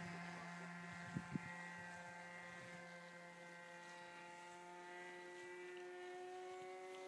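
Motor of a radio-controlled model Messerschmitt Bf 109 giving a faint, steady drone that fades as the plane climbs away. Two short knocks about a second in.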